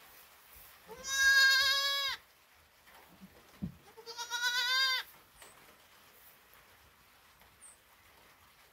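A goat bleats twice, each call about a second long with a slight rise at the start and then held, a couple of seconds apart.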